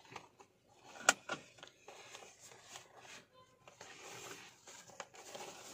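Satin ribbon on a cardboard gift box being untied by hand: soft rustling and small handling clicks, with one sharp click about a second in.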